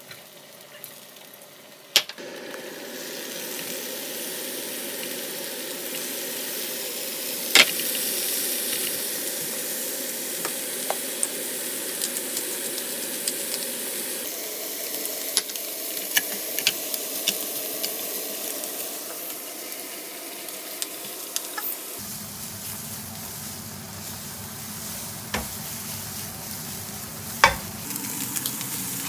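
Food sizzling and frying in a hot pan, with a steady hiss that swells about two seconds in, while it is stirred. Scattered sharp clicks and taps of a utensil against the pan come through it.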